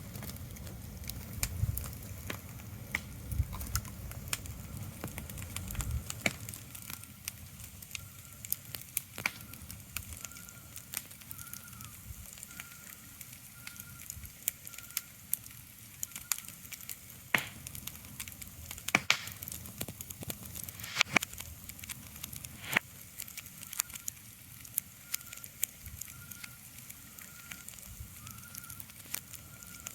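Irregular crackling and sharp pops over a soft steady hiss, with a low rumble that fades out about six seconds in. A faint, high, short chirp repeats at an even pace through the middle part.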